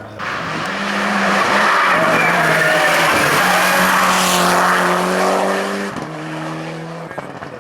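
Hillclimb race car driven hard up the course, its engine loud at high revs as it passes; about six seconds in the level drops and the engine note steps down sharply.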